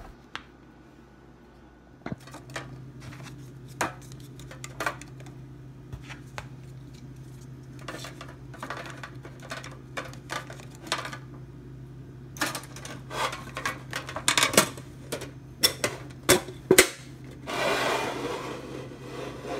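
Plastic single-serve coffee pods clicking and clattering as they are handled and packed into a metal tin box, the light knocks growing more frequent in the second half. A brief scraping rub near the end, over a low steady hum.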